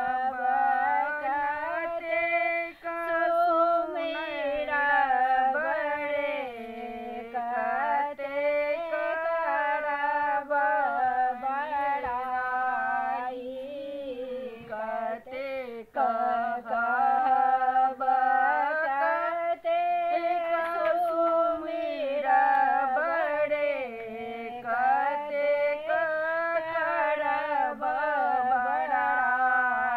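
Two women singing a melody together in unison, with no instrumental accompaniment, in phrases of a few seconds each.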